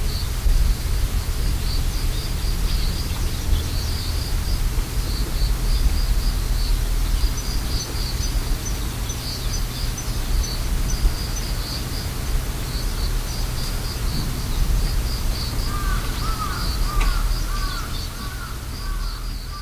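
Autumn insects chirping in a steady, pulsing chorus over a low, steady rumble. About three-quarters of the way through, a bird joins in with a quick run of short repeated calls.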